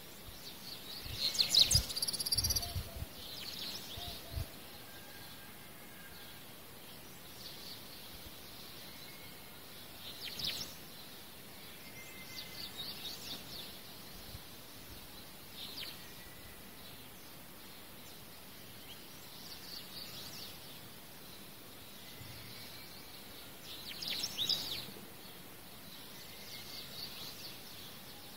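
Quiet hand sewing: a soft scratchy rasp every few seconds as the thread is drawn through the cloth and beads. About a second in there is a louder rustle of handling with a few soft knocks, and another rustle comes near the end.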